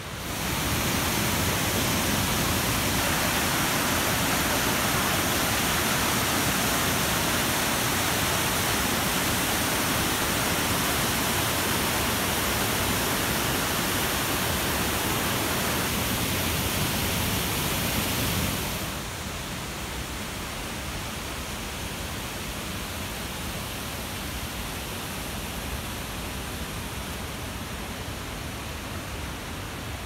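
Steady rush of water pouring down the tall, partly frozen Kaaterskill Falls. About two-thirds of the way through it drops to a softer, more distant rush.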